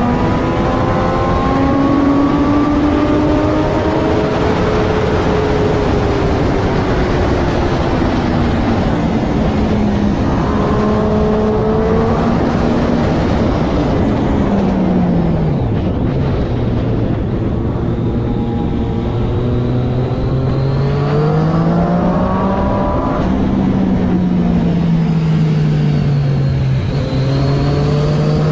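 Triumph Daytona 675R's inline three-cylinder engine at racing speed under constant rushing noise. The engine note rises and falls through the gears, drops steeply about halfway to a low steady pitch for a few seconds, then climbs again.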